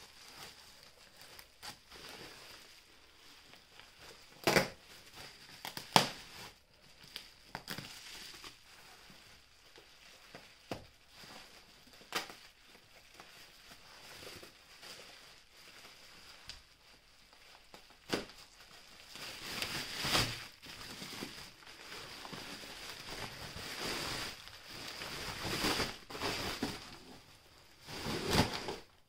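Wrapping material being handled and crumpled, crinkling in bouts, with several sharp knocks; the two loudest knocks come about a second and a half apart, and the crinkling grows longer and fuller in the last third.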